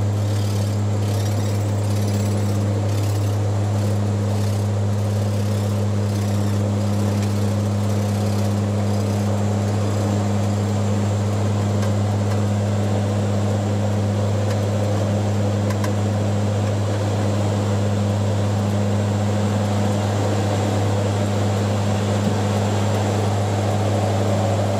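Cabin drone on the flight deck of a Bombardier Dash 8 Q400 in flight. Its Pratt & Whitney PW150A turboprops and six-bladed propellers give a steady low hum with a strong even tone, under a constant hiss.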